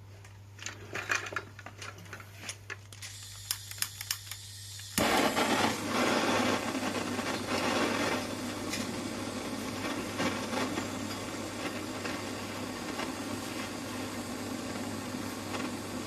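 A few knocks and clicks, then a steady machine noise that starts abruptly about five seconds in and keeps running.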